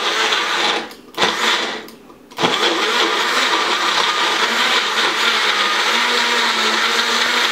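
Magic Bullet blender blending a smoothie: two short pulses in the first two seconds, then a steady run from about two and a half seconds in.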